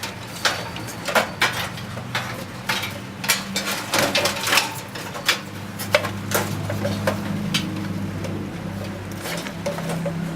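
Irregular clicks and knocks of a desktop computer's metal case and parts being handled and worked loose during disassembly.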